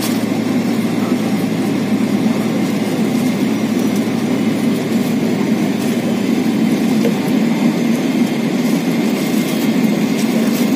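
Boeing 777-300ER's GE90-115B jet engines running at idle while the airliner taxis, heard from inside the cabin as a steady, even rumble with a low hum.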